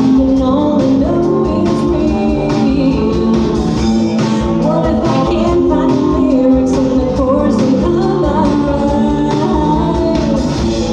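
Live rock band playing: a woman singing lead over electric guitar, bass guitar and a drum kit, with a steady drum beat throughout.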